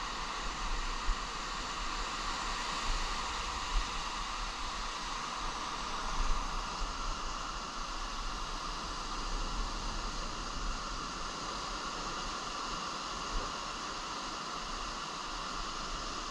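Steady rush of small surf waves washing up onto a sandy beach.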